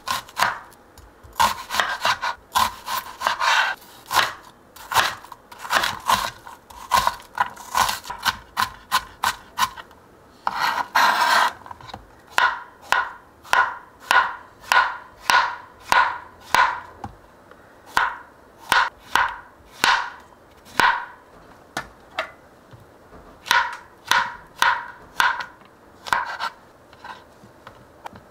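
Chef's knife chopping on a cutting board, first dicing an onion and then slicing button mushrooms: a steady run of sharp knife strikes on the board, two to three a second, with a quick burst of rapid chopping about ten seconds in.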